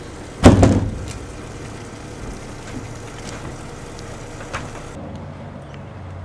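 A boat's deck hatch lid comes down with one loud bang and a brief rattle about half a second in, over a steady low engine hum.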